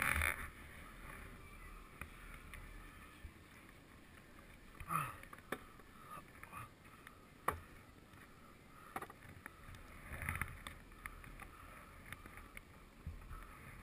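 Quiet chairlift ride: a faint steady hiss with scattered small clicks and knocks from the chair and the gear on it, the sharpest about five and seven and a half seconds in.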